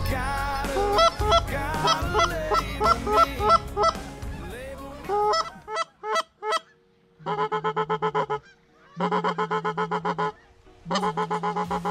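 A flock of Canada geese honking, with many overlapping calls through the first half. After a short lull come three bursts of rapid, evenly repeated honks, each about a second long.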